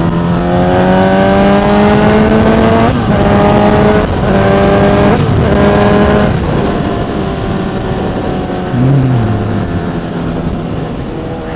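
Suzuki Hayabusa's inline-four engine accelerating up through the gears, its pitch climbing and dropping back at quick upshifts about three, four and five seconds in, then falling off as the throttle eases about six and a half seconds in. Wind noise at high speed blows across the microphone.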